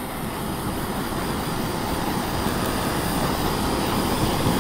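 Handheld blowtorch flame hissing steadily as it singes the pin feathers off a plucked duck, growing slightly louder.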